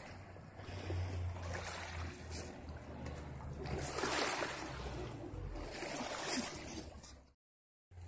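Small waves washing over a pebble shore, with wind rumbling on the microphone. The wash swells twice in the middle, then the sound cuts off suddenly near the end.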